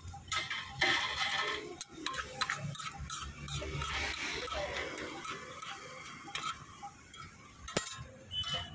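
Steel spatula scraping and clicking repeatedly on a flat iron tawa as a chickpea chaat mixture is stirred and chopped.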